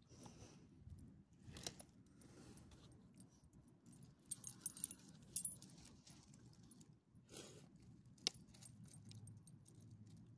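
Faint, intermittent jingling of metal ID tags and the leash clip on a small dog's collar as the dog moves, with a cluster of sharper clinks about halfway through and a single clink near the end.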